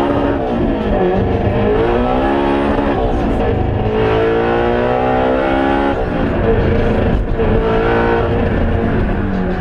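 Turbocharged Honda S2000's four-cylinder engine revving hard, climbing in pitch in three long pulls and falling back sharply between them, about three and six seconds in. The owner reports a misfire near the 9,000 rpm redline, which he puts down to bad spark.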